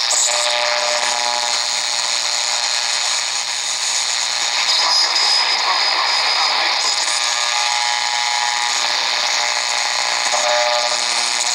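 Degen DE1106 shortwave receiver playing static and hiss as it is tuned across the 31 m band between stations. A pitched tone comes and goes in the first two seconds and again near the end, and a steady high whistle starts a little over four seconds in.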